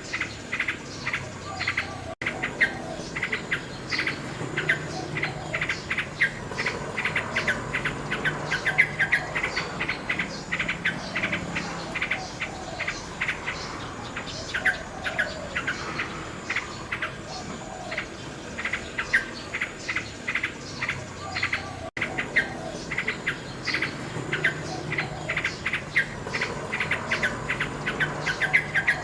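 Nightingale singing, with fast runs of short repeated notes and trills, over a steady chirping of insects.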